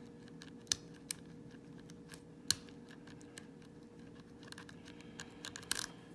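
Lock pick and tension wrench clicking and scratching inside the keyway of an old brass Corbin padlock as it is picked. Scattered sharp clicks, the loudest about three-quarters of a second and two and a half seconds in, with a quicker run of small clicks near the end.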